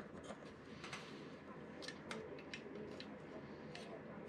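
Faint, scattered clicks and light taps of the parts of a Lionel 3656 cattle corral being handled and fitted together.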